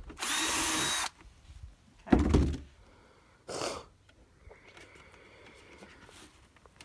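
Cordless drill running for about a second, drilling through two overlapped layers of a plastic food-grade bucket. About two seconds in comes a loud thump, followed by a shorter, softer noise.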